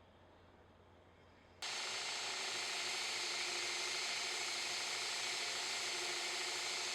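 A faint low hum, then about a second and a half in a belt grinder cuts in suddenly and runs with a steady hiss as it grinds the steel blade blank to rough shape.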